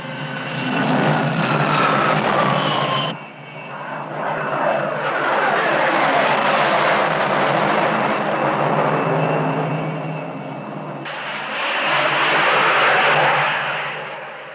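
Carrier jet aircraft passing low on the landing approach: a loud jet roar, with an engine whine that falls in pitch as the first jet goes by. The sound changes abruptly about three seconds in and again near eleven seconds, as one jet follows another.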